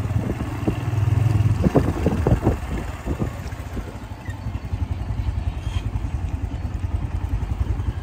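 Motorcycle engine running while riding over a rough dirt track, with knocks and rattles in the first couple of seconds. From about halfway it runs quieter with a steady, even pulse.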